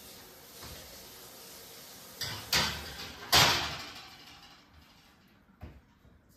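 Kitchen oven door and metal baking tray knocking and clanking: a few knocks about two seconds in, the loudest a second later with a short metallic ring, and one lighter knock near the end.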